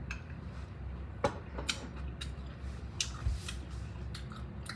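Someone chewing a spoonful of soup with kale: about half a dozen soft, wet mouth clicks and smacks, spaced irregularly, over a low steady hum.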